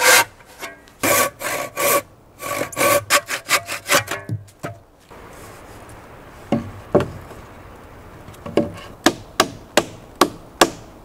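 Handsaw cutting through a pine block, long even strokes that turn into quicker short strokes as the cut finishes. The sawing stops about five seconds in, and a run of sharp knocks follows as the wooden block is fitted against a beam: two knocks, then about six more in quicker succession.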